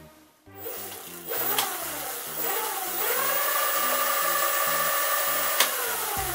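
Electric-bike BLDC hub motor (36 V, 240 W) driving the rear wheel: it spins up with a rising whine, holds a steady whine at speed for a few seconds, then starts to slow near the end. Background music with a steady beat plays over it.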